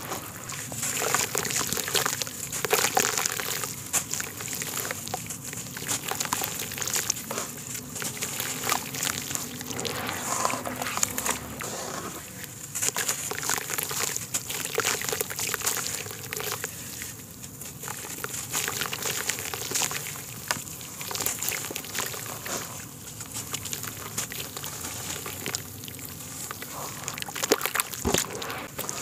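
Hands squishing and crumbling wet mud in a basin of muddy water: irregular wet squelches, sloshing and splashing as clumps are squeezed and dropped back into the water.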